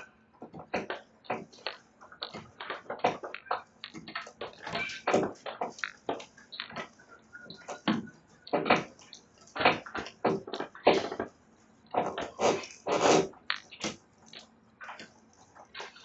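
Sulphur-crested cockatoos gnawing and splintering the wooden verandah rail with their beaks: an irregular run of sharp cracks and crunches, with a few louder clusters.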